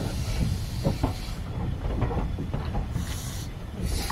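Small steam locomotive hauling a train, heard from the carriage behind. Steam hisses over the rumble and knocks of the wheels on the track; the hiss drops away about a second and a half in and comes back near the end.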